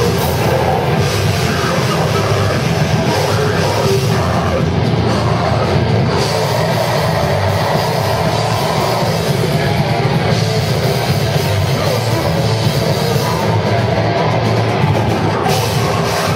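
Heavy metal band playing live: distorted electric guitars, bass and drum kit at full volume, loud and unbroken, heard from within the crowd.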